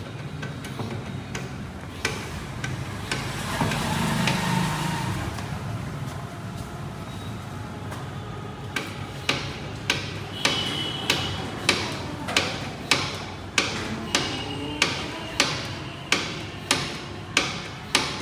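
Rhythmic metal knocking, sharp strikes with a short ring, about one and a half a second, starting about nine seconds in. Before that there is a steadier noise.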